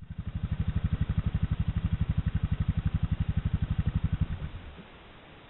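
ATV engine running at low revs with a fast, even pulse, then shut off about four and a half seconds in.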